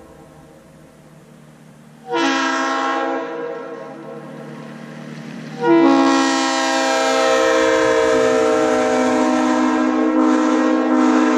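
Freshly rebuilt Leslie RS3L three-chime locomotive air horn blowing a short blast about two seconds in, then a long blast from a little past halfway on, its several tones sounding together as one chord.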